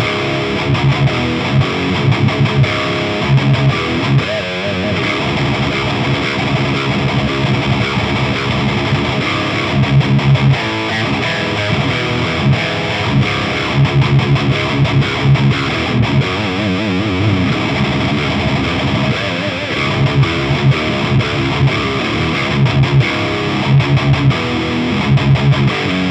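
Heavily distorted electric guitar riffs played through an Orange Rockerverb 100 MKIII tube amp head, with recurring bursts of low palm-muted chugs between faster picked notes. The amp's low end is being shaped by an EQ pedal placed in front of the preamp, so the bass is trimmed going into the gain stage.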